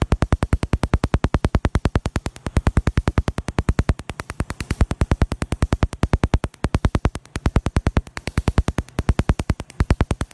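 Tattoo-removal laser firing rapid pulses, a run of sharp snaps at about ten a second, broken by a few short pauses as the trigger is released.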